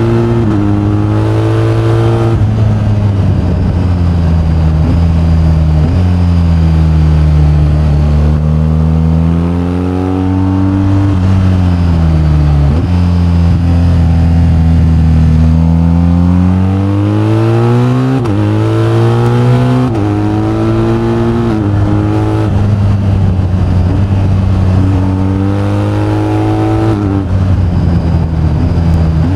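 BMW R1250GS's boxer-twin engine under way, its pitch falling and rising with the throttle. In the second half it climbs and drops several times in quick succession as the rider shifts through the gears.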